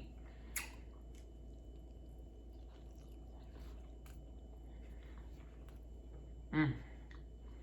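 Faint chewing and mouth sounds of a person eating, with a few small clicks. A short vocal sound comes near the end.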